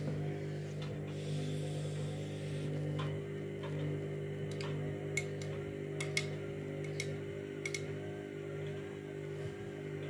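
Candy front-loading washing machine's motor humming steadily as the drum turns slowly with a bedding load, struggling to reach spin speed. Several sharp clicks are scattered through the middle.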